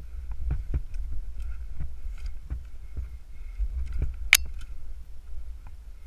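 Tree climber moving on a climbing rope, heard through a helmet camera: scattered small knocks and rubbing of gloves, rope and bark over a steady low rumble, with one sharp click a little over four seconds in.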